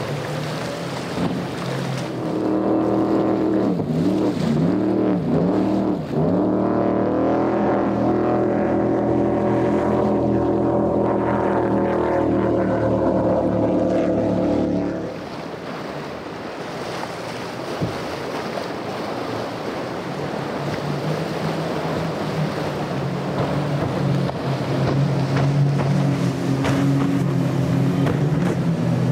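High-powered outboard-driven go-fast boats running at speed through choppy water, with spray and wind rush: a steady engine drone whose pitch wavers up and down a few seconds in. About halfway through the engine tone falls away to mostly water and wind noise, then another engine drone comes in near the end.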